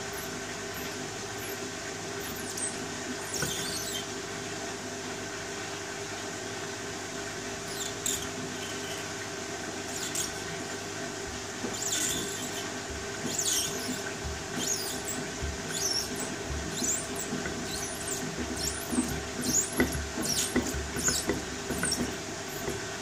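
Beko front-loading washing machine tumbling rubber sandals and dog toys in water: the drum motor hums steadily while the load gives short high squeaks, more and more often in the second half. Soft low thuds come as items drop in the drum.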